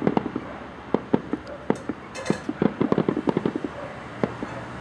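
Aerial fireworks bursting: a steady run of sharp bangs and crackling pops, coming in a quick string in the second half.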